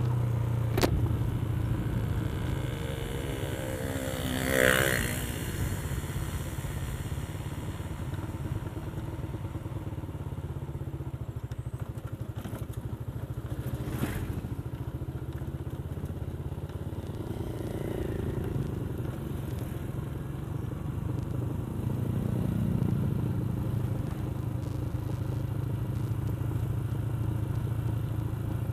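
Motorcycle engine running steadily while riding, with road noise. A brief louder swell about five seconds in, and a couple of sharp knocks.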